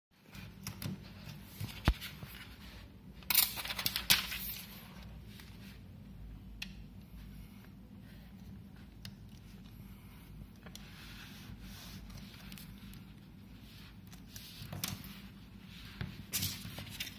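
Handling noise from a smartphone in a plastic alignment frame as a tempered glass screen protector is pressed on and smoothed: light scrapes and taps, a sharp click about two seconds in, and a louder bout of scraping and rubbing a little after three seconds. After that comes softer fingertip rubbing, with more rustling near the end.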